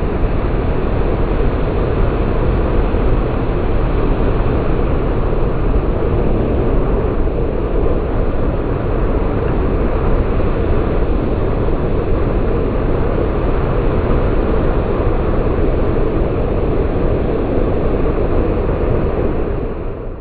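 Bass boat running at speed: a steady rush of wind buffeting the microphone, with engine and water noise underneath.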